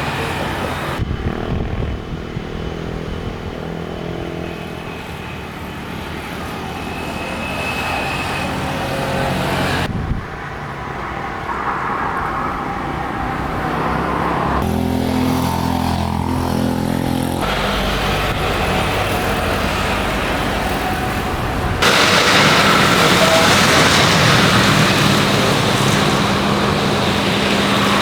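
Steady outdoor engine and traffic noise in several short clips joined by abrupt cuts; about two-thirds of the way through, a louder, brighter rushing noise takes over.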